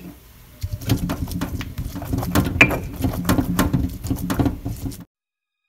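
A stone pestle grinding and knocking in a black stone molcajete as it crushes fresh guaje seeds, making rapid irregular gritty scrapes and clicks. It starts about half a second in and cuts off suddenly about five seconds in.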